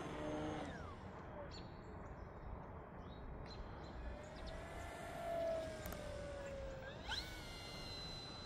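Faint whine of the FMS Cessna 182 RC plane's electric motor and propeller in flight. The pitch falls, then rises and falls again. About seven seconds in it climbs steeply and holds a high steady whine as the throttle comes up.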